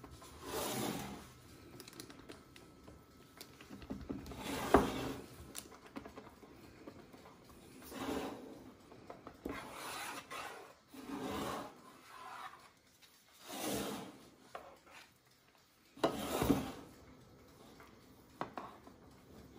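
Metal offset spatula spreading cake batter over parchment paper in a metal baking tin, in soft scraping strokes one every second or two, with a light click about five seconds in.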